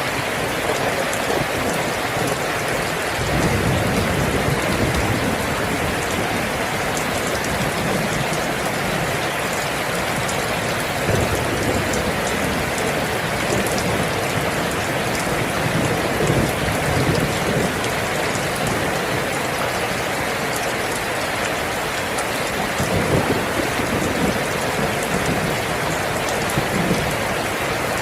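Steady heavy rain falling, an even dense hiss with brief low rumbling swells several times.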